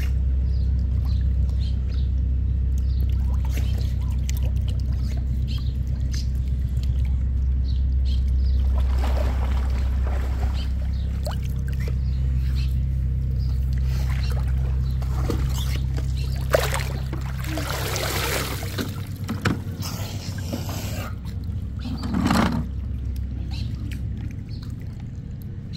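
Muffled pool water heard underwater: a steady low rumble with sloshing, and several sharp knocks and splashes in the second half.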